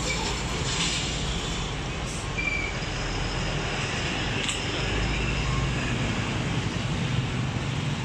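Street traffic: a steady rumble of passing vehicle engines and tyres on the road.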